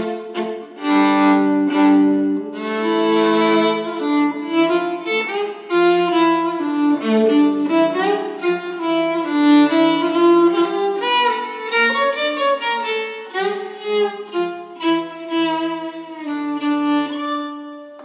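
Solo violin playing a tune, bowed note after note, dying away near the end.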